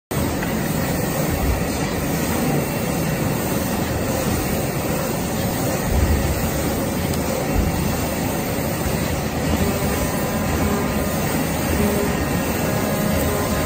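CNC digital knife cutting machine running as it cuts corrugated cardboard: a steady mechanical noise that holds level throughout.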